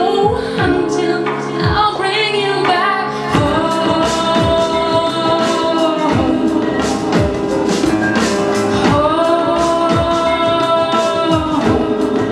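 A woman singing long, held notes live over music with a steady, pulsing kick-drum beat.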